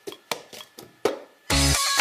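Several sharp, irregular taps or clicks, then background music starts abruptly about one and a half seconds in with a deep bass hit and a melody.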